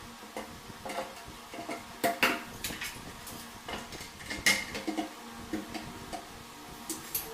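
Irregular clicks, knocks and metallic clinks from a cabinet door and its metal cup hinges being handled and fitted onto a kitchen base cabinet, the loudest knocks about two seconds in and about four and a half seconds in.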